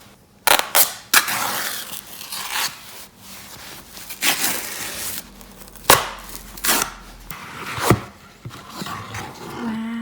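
Handling and opening an iPhone 12's packaging: irregular rustling, tearing and scraping noises, with a sharp knock about six seconds in.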